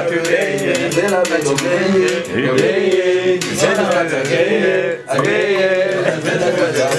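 A man's voice rapping in a chanted, sing-song flow into a microphone over a backing beat with regular hi-hat ticks; the voice breaks off briefly about five seconds in.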